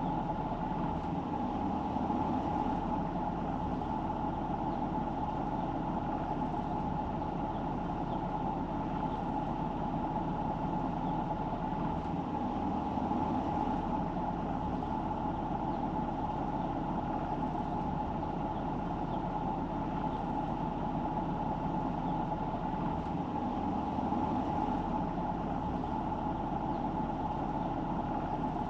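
Steady driving noise of a car on the road, a constant hum over road noise that holds the same level throughout.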